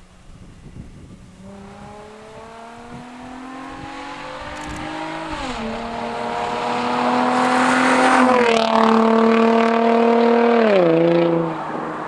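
Nissan 350Z's V6 running through a dual Tomei exhaust, pulling hard: the engine note climbs in pitch and grows louder, steps down in pitch three times, and falls off sharply near the end.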